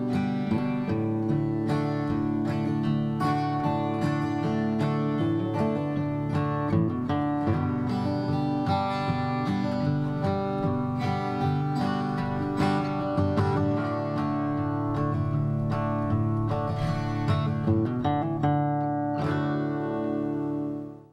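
Acoustic guitar theme music, picked and strummed, played at a steady level and ending on a held chord that drops away quickly at the very end.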